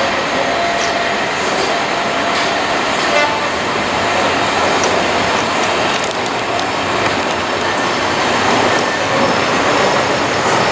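A train passing close by, a loud, steady noise of the running train with a few light clicks.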